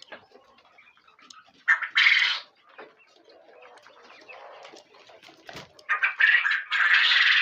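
Birds calling in two loud bouts, one about two seconds in and a longer one near the end, with fainter calls and small noises between.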